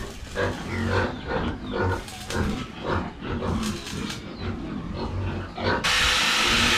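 Pigs grunting in a quick run of short calls, about two a second. Near the end a loud steady hiss cuts in suddenly and takes over.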